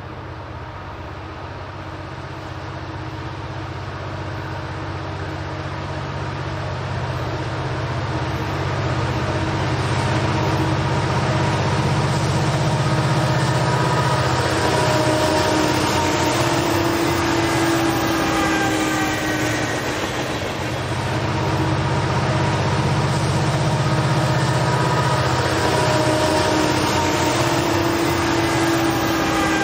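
Union Pacific EMD diesel locomotives (two SD70Ms and an SD60, two-stroke V16 engines) working upgrade as they approach and pass. The deep engine drone grows louder over the first ten seconds, and a whine shifts in pitch as a unit goes by, twice: about a third of the way in and again near the end, with a brief dip in loudness between.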